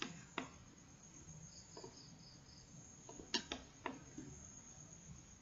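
Computer mouse clicking: two clicks about half a second apart, then three more in quick succession about three and a half seconds in. A faint high steady whine runs underneath.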